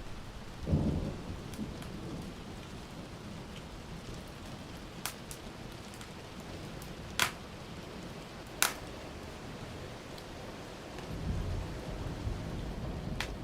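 Steady rain hiss with thunder: a short, loud low rumble about a second in and a longer rumble building near the end. A burning wood fire crackles with a few sharp pops over it.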